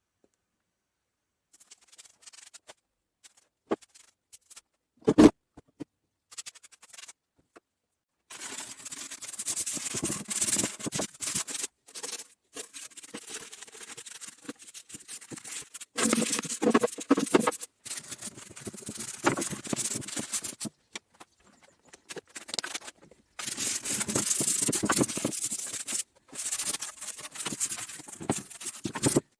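Repeated scraping and rubbing on a surface in spells of several seconds with short pauses, after a few scattered knocks, the loudest about five seconds in.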